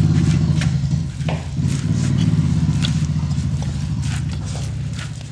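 Hands kneading oiled urad dal dough in a large steel bowl, with a few faint knocks, over a steady low hum like a machine running.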